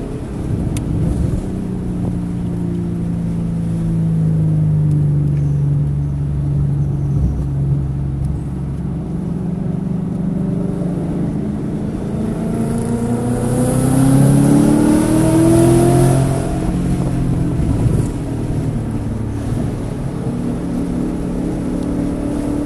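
Car engine driven hard on a race track, its pitch sinking as it slows and then climbing under acceleration to its loudest about two-thirds of the way through before dropping back. The engine is misfiring on cylinders 1, 3 and 4.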